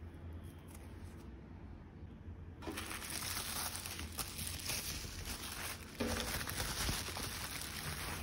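Bubble wrap crinkling and rustling as hands unwrap a small bubble-wrap pouch. It starts about two and a half seconds in, after a quiet stretch, and grows a little louder about six seconds in.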